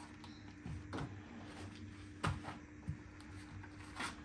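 Light knocks and clicks of kitchen items being handled, about five scattered through, over a steady low hum.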